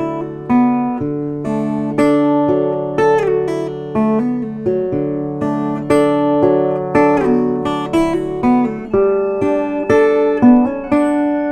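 Instrumental background music of plucked strings: single notes struck about once or twice a second, each ringing out over a held low note.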